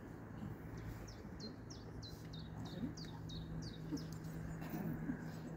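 A songbird singing a rapid run of about a dozen short, high, downslurred notes, about five a second, lasting a little over two seconds.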